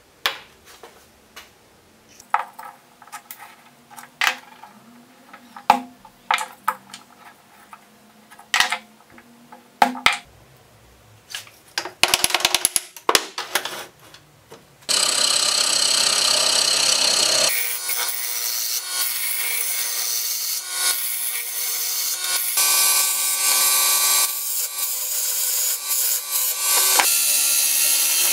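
Clicks and knocks of small parts and wood being handled and set down. About halfway in, a wood lathe starts running and a turning gouge cuts the spinning pine blank: a loud steady hiss of cutting over a motor hum.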